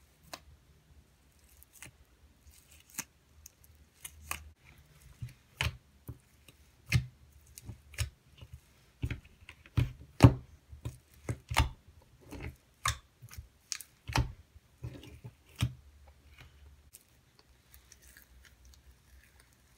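Fingers poking and squeezing a thick cloud cream slime in a plastic tub, giving irregular sticky clicks and pops. They come thickest in the middle and thin out near the end.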